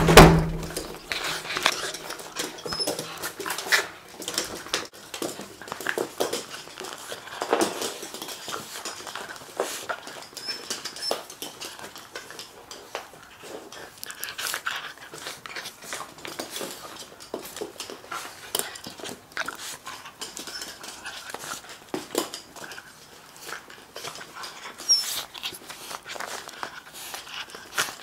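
Shiba Inu dogs greeting excitedly at close range: a busy run of scuffling and handling noise with occasional short dog sounds, opening with a loud thump.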